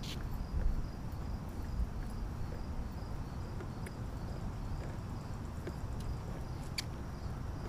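Faint, evenly repeated high cricket chirps over a low steady rumble, with a few isolated sharp clicks.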